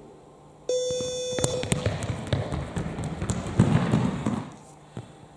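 A brief steady beep about a second in, then running footsteps and sneaker squeaks on a sports hall floor that fade out after a few seconds.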